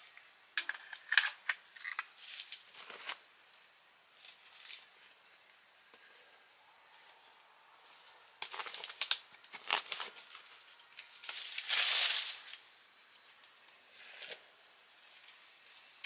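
Dry plant material crackling and rustling in irregular bursts, with sharp clicks, over a faint steady high-pitched hum. The bursts are loudest a little over halfway through and again about three-quarters through.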